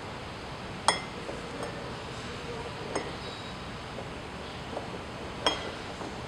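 Light metallic clinks as a manual lock-out hub's base is turned by hand to line it up in the splines of a Ford wheel-bearing unit: a sharp ringing clink about a second in, a softer one midway, and another sharp one near the end.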